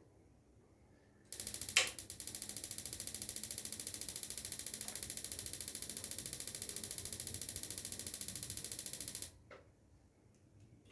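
Instant water heater's electronic spark igniter ticking rapidly for about eight seconds during a test firing after a new solenoid module, thermostat and switch were fitted; it starts with a click and cuts off suddenly, followed by a single click.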